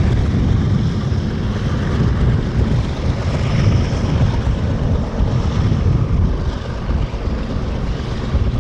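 Freight train of covered hopper cars rolling past close by: a steady low rumble of steel wheels on the rails.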